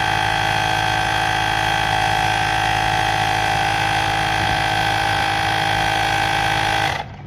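Portable electric tyre inflator pumping up an electric unicycle's tyre, a loud steady motor-and-pump drone that cuts off suddenly about seven seconds in as the tyre reaches the 2.3 bar that was set.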